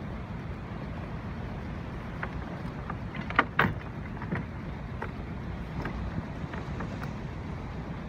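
Steady low rumble of an Alberg 30 sailboat's inboard engine running slowly. Over it come a few sharp clinks and knocks, the loudest pair about three and a half seconds in, as the anchor gear is handled at the bow.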